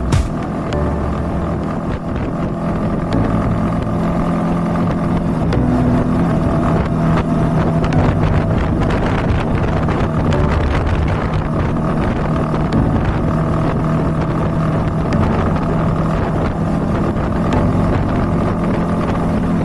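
Honda CB190R's single-cylinder engine running while riding, its note shifting a few times, with wind rushing over the camera microphone.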